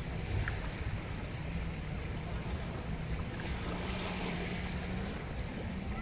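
Small waves washing and lapping on a sandy shore, the wash swelling about two-thirds of the way through, with wind rumbling on the microphone. A faint low hum runs through the middle.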